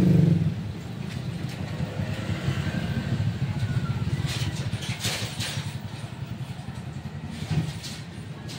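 A steady low engine rumble, with a few light clicks about halfway through.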